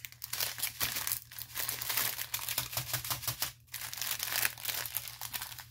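Plastic packaging of a diamond painting kit, the strip of sealed drill bags and the canvas's plastic sleeve, crinkling continuously as it is handled, with a brief lull a little past halfway.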